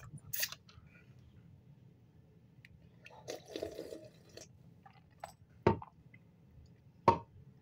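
A person drinking canned boba tea straight from the can: a short click near the start, then sipping and swallowing about three seconds in, followed by two short mouth sounds near the end.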